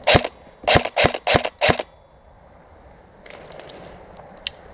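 Airsoft gun firing five single shots in quick, slightly uneven succession, each a sharp crack.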